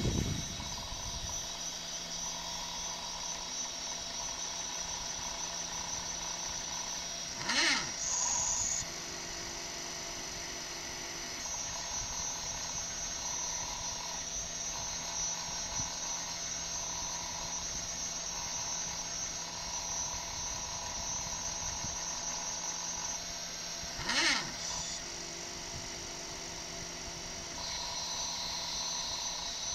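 Small stepper motors of a mini CNC laser engraver whining in short on-off stretches as they step the laser head along its lead screws while it engraves. Twice, a quick sweep in pitch with a click marks a fast move.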